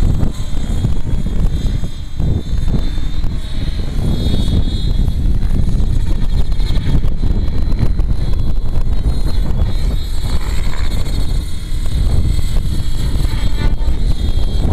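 RC helicopter in flight, its motor and rotor giving a steady high whine. A heavy rumble of wind on the microphone lies under it.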